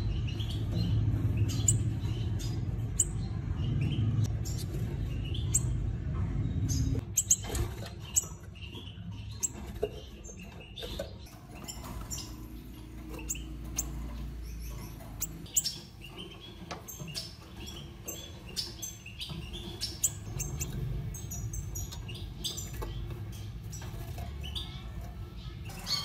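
Gouldian finches giving many short, high squeaks and chirps, over a low rumble that is heavier for the first several seconds.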